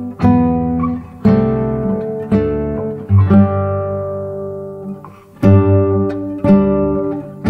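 Background music: acoustic guitar strumming chords, roughly one strum a second, each ringing out and fading before the next.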